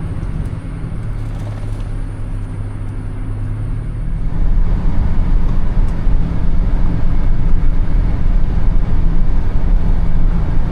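A motor vehicle driving, with a steady low engine hum and road noise that gets louder about four seconds in.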